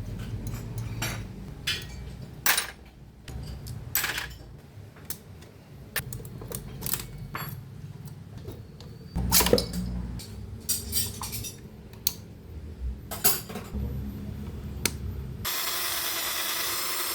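Metal hand tools and parts clinking and knocking in irregular sharp clanks, as in work on a car engine. Near the end a steady hiss starts suddenly.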